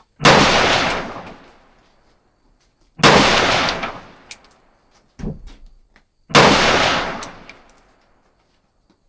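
Three rifle shots about three seconds apart, each with a long echoing tail and short high metallic pings after it. A quieter, duller bang falls between the second and third shots.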